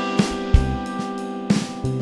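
Live band playing an instrumental stretch of a psychedelic soul song: held electric guitar chords over a drum kit, with a few sharp drum hits.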